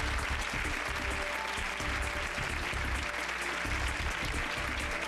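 Studio audience applauding, with music and a low beat playing underneath.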